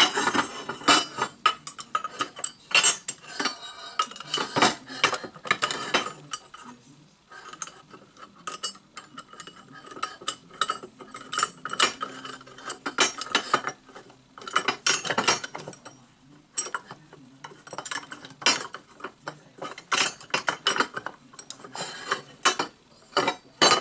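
Lengths of aluminium T-slot extrusion clinking and knocking against one another and against a steel plate as they are handled and fitted together, in irregular metallic clatter.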